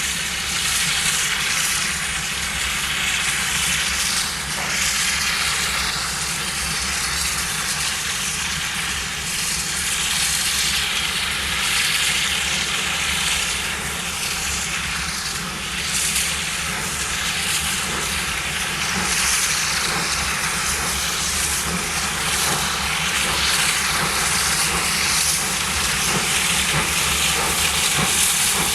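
Steam hissing steadily from the DR 18 201 steam locomotive, a loud rushing noise that swells and eases every few seconds.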